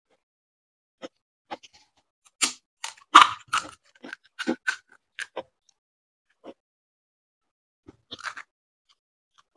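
Crisp fried fuchka (pani puri) shells crunching as they are chewed, a run of sharp crunches in the middle. Near the end comes a short crackle as another shell is broken open for filling.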